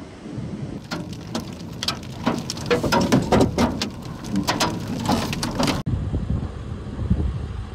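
Wind buffeting the microphone as a low rumble, with scattered heavy raindrops striking close by as irregular sharp taps from about a second in. The taps stop abruptly near six seconds, leaving only the wind.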